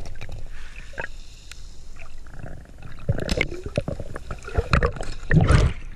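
Muffled underwater sound from a camera held in shallow water: a low rumble of moving water with scattered clicks and knocks as coral rubble and a conch shell are handled, and a louder surge of water near the end.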